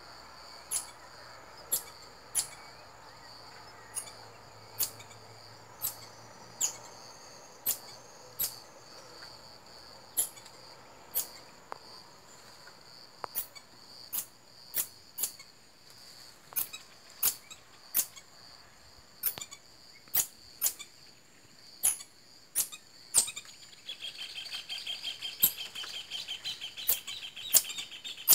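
Marmoset giving short, sharp, high-pitched calls about once a second over a steady, high insect drone. About four seconds before the end, a fast pulsing trill joins in and the calls come louder.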